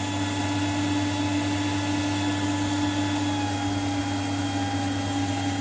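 Steady whir of cooling fans with a constant electrical hum as a 1 kW VHF linear amplifier with a BLF188XR transistor runs keyed up, putting out around 1200 watts.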